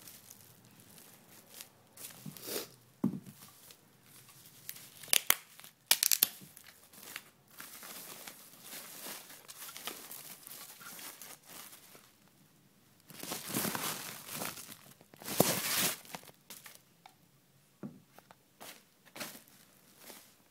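Foam and plastic packing wrap being handled and pulled off during unwrapping, rustling in irregular bursts, loudest about five to six seconds in and again from about thirteen to sixteen seconds.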